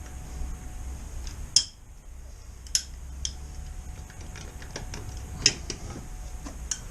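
Sharp metallic clicks and clinks, about five spread out and uneven, as a rear-wheel bolt is handled and started into the hub of a BMW R1250RT.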